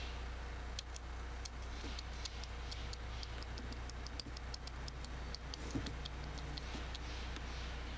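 A chipmunk's short, high chips, repeated irregularly a few times a second and stopping near the end, over a steady low hum.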